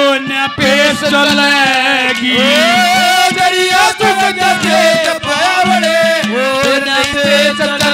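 A man singing a Haryanvi ragni through a PA, his voice sliding and bending between notes, over a steady held drone note and quick hand-drum strokes.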